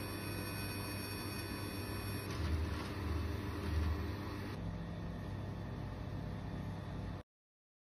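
Automatic laser welding machine running with a steady mechanical hum and several fixed whining tones. A louder low rumble runs from about two and a half to four seconds in, and the sound cuts off abruptly near the end.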